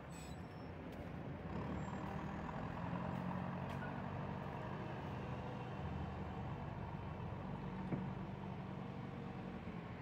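Distant JCB 3CX backhoe loader's diesel engine running as the machine works, a steady low hum that rises a little about a second and a half in.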